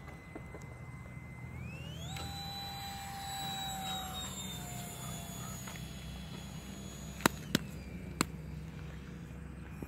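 A faint engine whine that rises sharply in pitch about two seconds in, holds and slowly sinks, then drops back, over a low steady hum. Three short sharp clicks come near the end.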